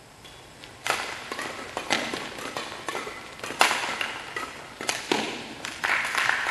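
Badminton rally: rackets hitting a shuttlecock in a quick run of sharp cracks, with footwork on the court, the loudest hit about three and a half seconds in. Applause starts near the end as the rally finishes.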